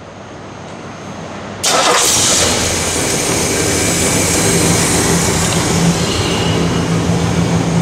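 Ford 429 cubic-inch four-barrel Thunderjet V8 starting: a rising cranking noise, then the engine catches with a sudden loud burst about a second and a half in and settles into a steady idle.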